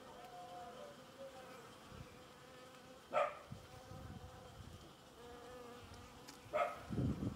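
Honeybees buzzing, a thin wavering drone that rises and falls as bees move about, with two brief louder buzzes about three seconds in and near the end. A louder low rumble comes in at the very end.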